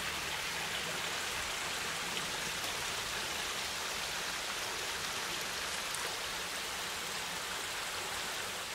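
Steady rushing of a creek's flowing water.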